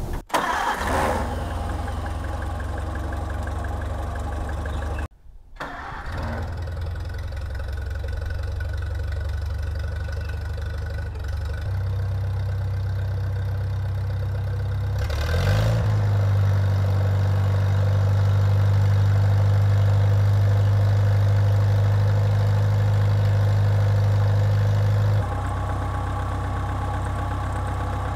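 Farmall Cub's four-cylinder flathead engine running. About halfway through it speeds up with a rising pitch and then runs louder and steady, with a short break in the sound around five seconds in.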